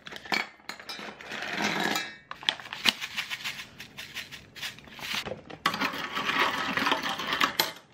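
Manila clams clattering and clicking as they are tipped into a stainless steel pot of water, then salt sprinkled in and a hand working among the shells, with repeated clinks against the metal pot. The clams are being set in salted water to purge their sand.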